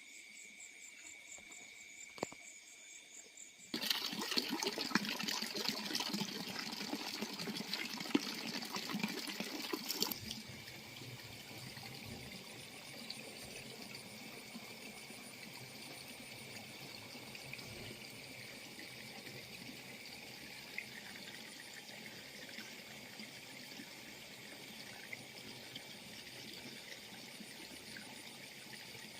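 Crickets trilling in a steady night chorus. About four seconds in, a much louder rushing, crackling noise cuts in, lasts about six seconds, and stops abruptly, leaving the insect chorus.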